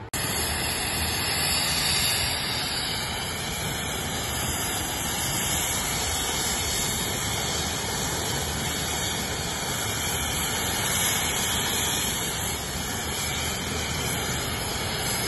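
Police helicopter's turbine engine running on the ground: a loud, steady rushing noise that does not change.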